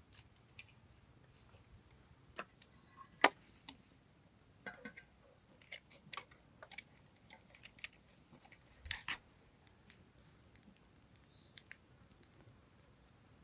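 Scattered faint clicks and taps from food preparation, irregular and spaced out, with the sharpest tap about three seconds in and a small cluster about nine seconds in.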